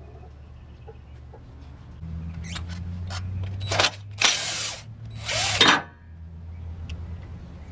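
Cordless impact wrench on a bolt: its motor runs, then it hammers in two loud bursts about half a second each, roughly a second apart.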